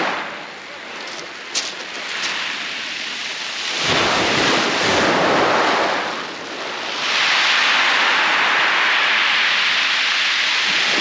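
Surf breaking on a shingle beach: a loud hiss that swells with each wave, with a big surge about four seconds in and another from about seven seconds on. A single sharp click comes about a second and a half in.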